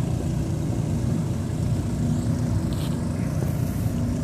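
Steady low rumble of boat engines idling on the water.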